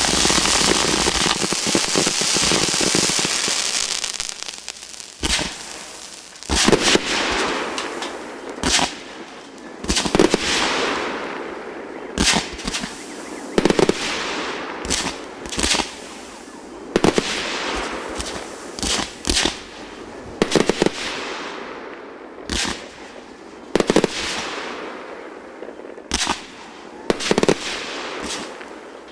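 Fireworks display: a dense crackling barrage for the first few seconds, then a string of sharp bangs about one to two seconds apart, each trailing off into a fading crackle.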